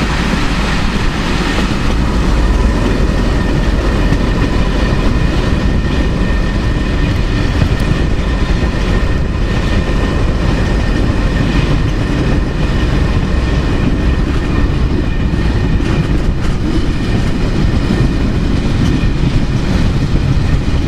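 Train running: a steady rumble with scattered clacks, typical of wheels passing over rail joints.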